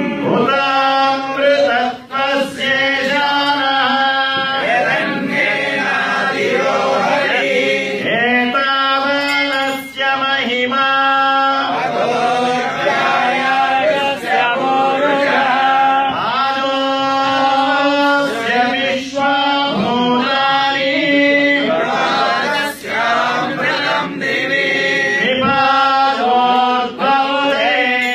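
Several voices chanting mantras in unison, with long held notes that change pitch and break every second or two.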